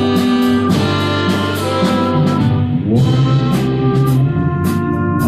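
Live band playing an instrumental passage between sung lines: sustained chords over a drum kit with regular cymbal hits, the harmony changing about three seconds in.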